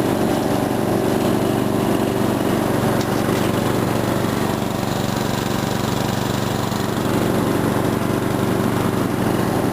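Ariens rear-engine riding mower's Briggs & Stratton engine running steadily at full throttle with the mower blade engaged, cutting grass while driving in first gear.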